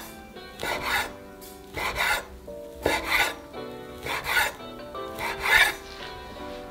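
Kitchen knife slicing thin fried tofu (aburaage) on a bamboo cutting board: five rasping cuts about one a second, each ending on the board, the last the loudest. Soft background music runs underneath.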